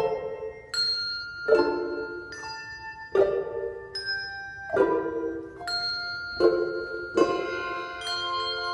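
English handbells rung by an ensemble, playing a hymn arrangement. Chords are struck roughly once every 0.8 seconds, and each one rings on into the next.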